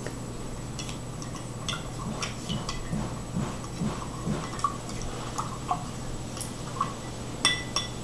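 A wooden popsicle stick stirring salt into vinegar in a glass cup, giving scattered light clinks and taps against the glass, with a couple of sharper taps near the end.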